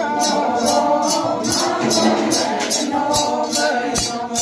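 A group of dancers singing an Adi folk dance song together, with a rattle shaken in a steady beat about three times a second.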